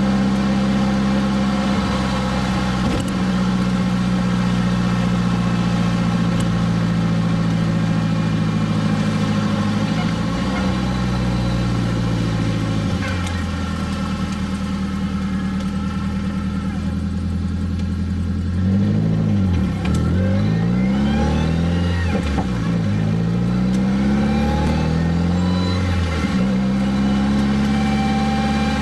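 Nissan D21 pickup's turbocharged SR20DET four-cylinder engine running with a steady note, whose pitch eases down about a third of the way through and then dips and rises several times in quick succession before settling again.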